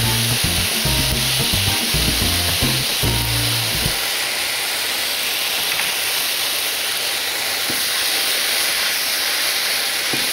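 Finely sliced collard greens (couve) sizzling steadily in a hot frying pan as they are stirred with tongs. Background music with a bass line plays over the first four seconds or so, and there is a light knock near the end.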